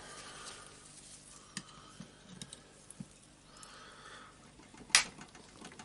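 Light metal clicks and scrapes of two screwdrivers levering at an orbital sander's armature and bearing housing, with one sharper click about five seconds in.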